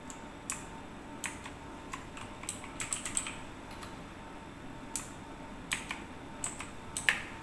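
Keys being pressed one at a time on a mechanical keyboard: irregular sharp clicks, a few in quick succession about three seconds in and again near the end.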